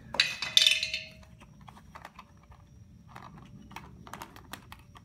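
Metal clatter and clinks from the air-filter cover of a vintage Homelite chainsaw being taken off and handled. A loud clatter with a short ring comes in the first second, then scattered light taps and clicks.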